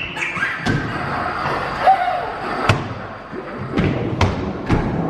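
A few irregular thumps and knocks, about five of them, over a steady background din.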